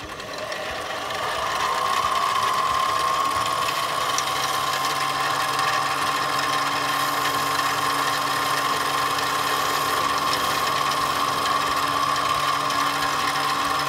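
Harbor Freight 7x12 mini metal lathe running with a steady whine and hum. Its tool is taking a light finishing cut along the shoulder of an aluminum bushing. The sound grows louder over the first two seconds, then holds steady.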